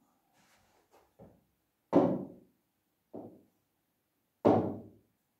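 Dull knocks of a hand and pen tapping against a wall-mounted interactive touchscreen board while writing on it. There are four knocks about a second apart, the second and fourth loud.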